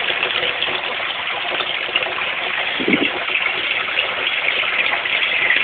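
Water gushing steadily as it drains out of a holding barrel through a wide-open toilet flush valve. This is the flood stage of a flood-and-drain aquaponics system, the valve having been pulled open by a tipping siphon-filled bucket.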